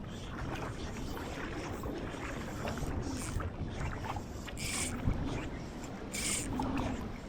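Shallow water sloshing while someone wades a saltwater flat, with two swishing splashes in the second half, about a second and a half apart.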